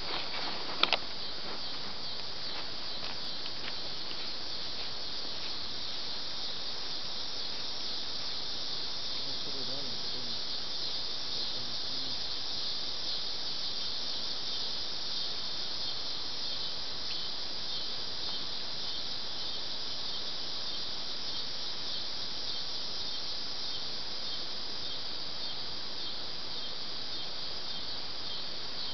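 Steady high-pitched chorus of summer insects in the creekside woods, with a couple of sharp clicks about a second in.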